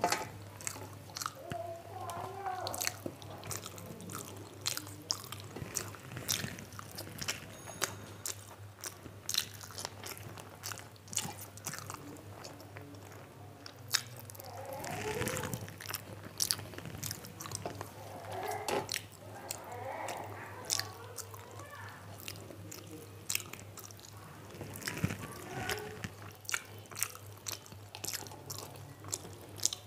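Close-miked mouth sounds of a person chewing a meal of rice and curry, with frequent small clicks and smacks. A low steady hum runs underneath.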